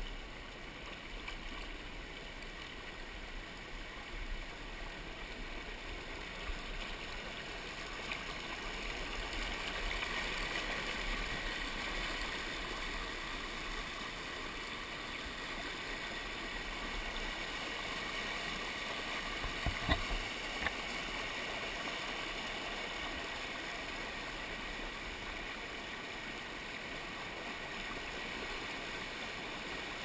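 Mountain stream rushing over boulders and a small cascade, a steady sound of running water. A few short knocks come about two-thirds of the way through.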